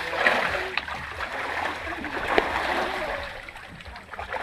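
Water splashing and rushing, with a few sharper splashes; the sharpest comes about two and a half seconds in.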